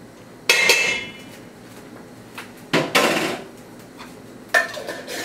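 A metal spoon clanks against a stainless steel pot while scraping solid coconut oil into it: three sharp knocks, the first ringing briefly.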